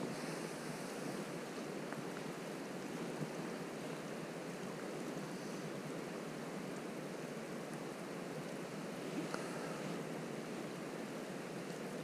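Steady rushing of river water flowing past, with a few faint clicks.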